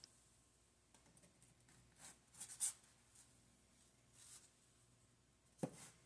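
Near silence with a few faint, short scratchy rustles and a brief soft knock near the end.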